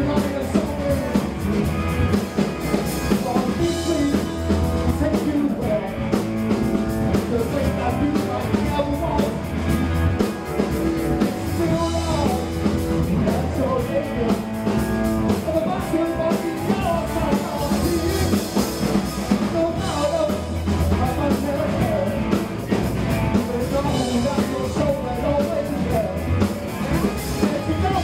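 A rock band playing live: electric guitars, bass guitar and a drum kit, with a singer's voice over the top.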